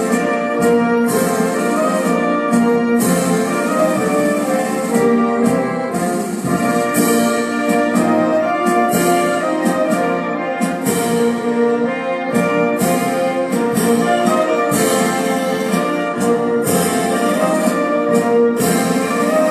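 A national anthem in an orchestral arrangement, brass to the fore over a full orchestra, at a steady, loud level with occasional drum or cymbal strokes.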